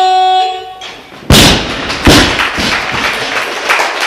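A buzzer tone lasting under a second, typical of a weightlifting referee's down signal. About a second later a barbell with rubber bumper plates, dropped from overhead, hits the lifting platform with a loud thud and lands again under a second later. Clapping and cheering follow.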